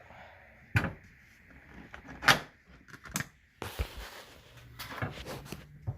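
Scattered sharp clicks and knocks of car dashboard trim and fittings being handled as a piece is worked back out, the loudest about two seconds in, with a short scraping rustle a little past the middle.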